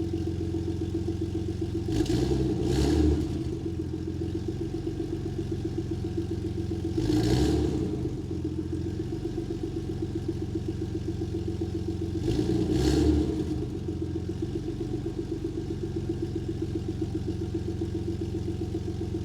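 Lexus GS 300 3.0 L V6 idling through an aftermarket Guerrilla bypass exhaust with the mid muffler deleted, given three short throttle blips spaced about five seconds apart before settling back to idle each time.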